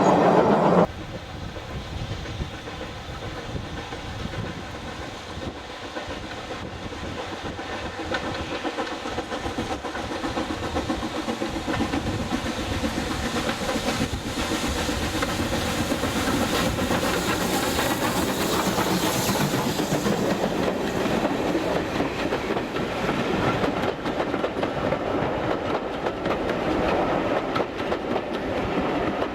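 Steam train hauled by BR Standard 4MT 4-6-0 No. 75014 running along the line, with wheels clattering over the rail joints. The sound grows gradually louder over the first half and then holds steady. About a second in, a louder sound cuts off abruptly.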